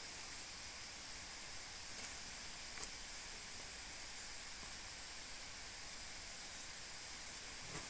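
Steady outdoor ambience: an even, faint high hiss with one soft tick about three seconds in.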